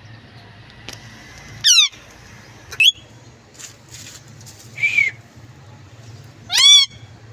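Indian ringneck parakeet giving four short, loud squawking calls a second or two apart; the first sweeps down in pitch and the last, the loudest, arches up and down.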